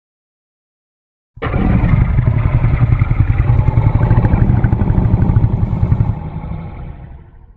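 Custom kaiju monster growl sound effect: a deep, fast-pulsing rumbling growl that starts suddenly after a moment of silence, holds for about five seconds and then fades out.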